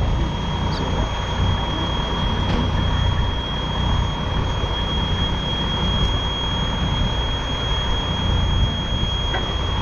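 School fire alarm sounding one continuous high-pitched tone, unbroken, over a steady low rumble.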